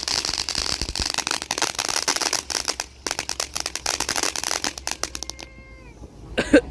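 Ground fountain firework crackling, a dense rapid stream of small pops over a hiss, that thins out and dies away about five seconds in. Just then a brief pitched whine sounds.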